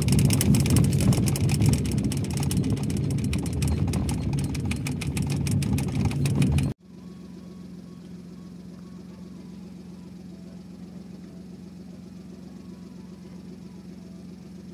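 Car running along a road, engine and tyre noise heard from inside the cabin. It cuts off abruptly about seven seconds in, giving way to a much quieter steady low hum.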